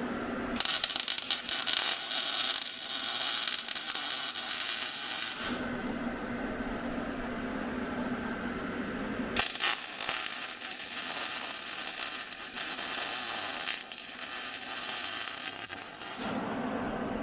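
Two long stretches of loud hissing, crackling noise, one about five seconds and one about seven seconds long, with a low steady hum in the pause between them.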